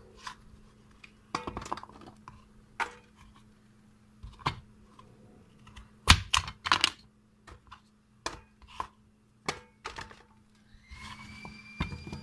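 Cut vegetables being dropped and arranged in an aluminium baking pan: irregular knocks and clatters against the metal, over a steady low hum. Music comes in near the end.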